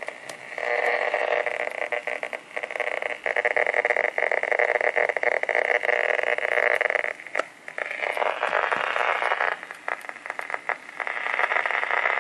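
Coca-Cola bottle-shaped novelty radio coming on as its cap knob is turned, putting out a loud hiss and crackle of static with many clicks. The static dips briefly a few times, as when tuning between stations.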